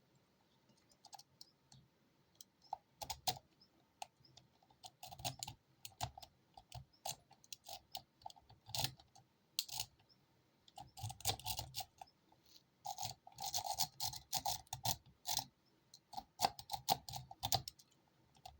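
Rake pick scrubbing in and out of a Holex padlock's keyway under tension, metal scraping and the pin tumblers clicking in irregular quick flurries. The lock has not yet opened.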